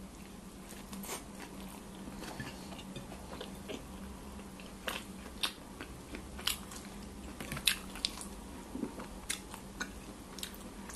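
A person chewing and biting into a hot dog in a soft bun: quiet wet mouth clicks and smacks, more frequent from about halfway through, over a faint steady hum.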